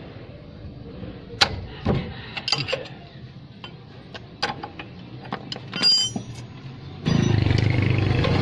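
Steel combination wrench clinking against the tie rod end's castle nut as the nut is worked, a series of sharp, irregular metal clinks. About seven seconds in, a louder steady noise with a low hum starts suddenly.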